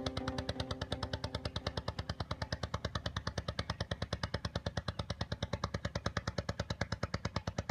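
Small open boat's engine running steadily with a fast, even beat of about ten pulses a second.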